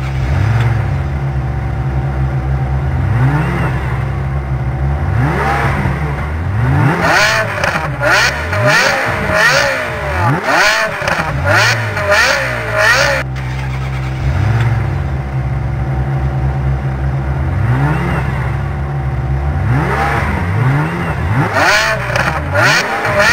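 Lamborghini supercar engines idling with a steady low hum and being revved again and again, each rev a quick rise and fall in pitch. The revs are busiest around the middle.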